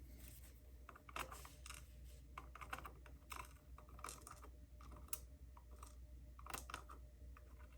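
Faint, irregular small clicks and light scrapes of tiny metal lock pins and hand tools being handled while a padlock core is taken apart.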